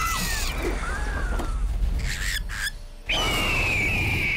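Cartoon condors squawking over background music. About three seconds in comes one long, high screech that falls slightly in pitch.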